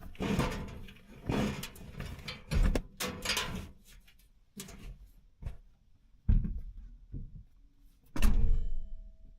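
Irregular knocks, thumps and short rustles of things being handled, with a heavier thump about 8 seconds in, the loudest of the run.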